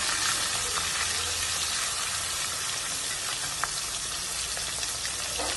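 Hilsa fish head frying in oil in a steel wok, with a steady sizzle.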